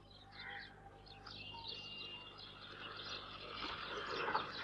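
Birds chirping, with a noise that grows louder toward the end.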